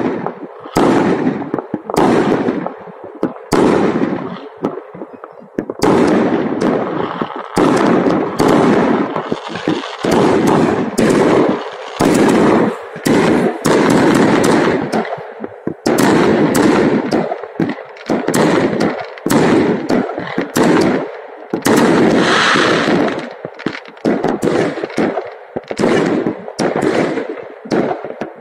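New Year fireworks going off across a city: a dense, continuous barrage of sharp bangs and crackling, many explosions overlapping with hardly a pause.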